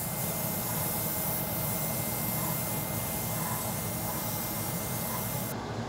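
Airbrush spraying metallic lacquer: a steady hiss over a steady low hum, the hiss's high edge stopping short near the end.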